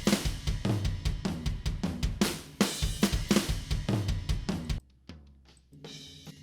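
Raw, unprocessed multitrack recording of an acoustic drum kit playing a fast tom roll with kick, snare and cymbals. The dense run of hits stops abruptly about five seconds in, leaving quieter ringing drums and cymbal wash.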